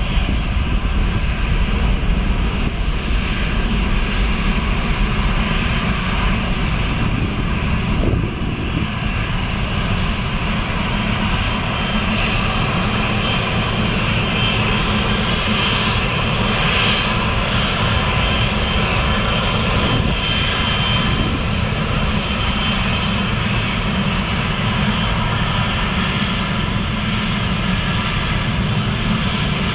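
Boeing 777-300ER's GE90 jet engines running steadily as the airliner taxis: a continuous rumble with a high fan whine, strongest around the middle while the nose points toward the listener.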